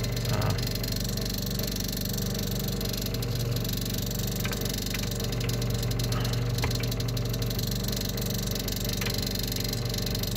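Electric pump motor of a railway carriage toilet system running with a steady hum, building pressure under the control of a pressure switch being adjusted, with a few light clicks.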